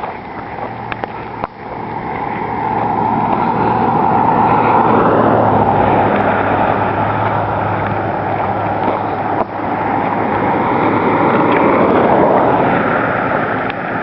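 A motor vehicle running along with a steady engine hum under loud road and wind noise, building over the first few seconds and then holding steady.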